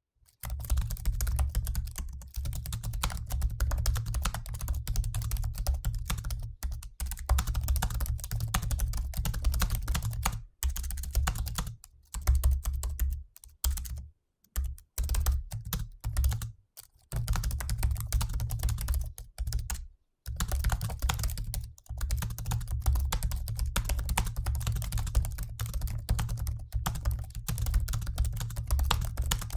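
Fast typing on a mid-2015 MacBook Pro's built-in scissor-switch laptop keyboard: a dense, continuous run of key clicks, broken by a few short pauses.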